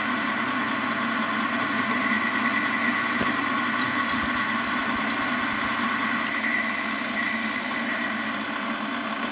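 Warco metal lathe running with the spindle turning, a boring bar cutting under power feed in the bore of an aluminium blank: a steady hum with a higher whine that holds even throughout.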